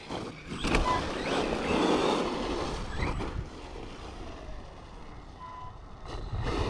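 Arrma Mojave 4S brushless RC truck being driven on a 5S battery: the motor whines, with pitch rising under throttle about three seconds in and again at the end, over tire and wind noise.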